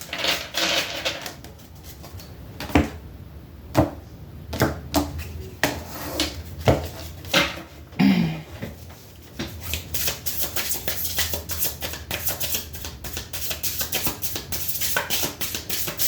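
Tarot cards being handled and shuffled: scattered sharp card taps and slaps for about the first half, then from about nine seconds in a continuous rapid patter of shuffling.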